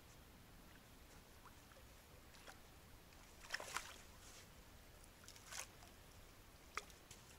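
Hooked fish splashing at the water's surface while it is played on a feeder rod: a quick double splash about three and a half seconds in, then two shorter ones near the end.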